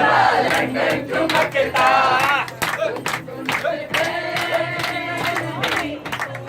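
A crowd of people shouting and yelling together, many loud voices overlapping without a break.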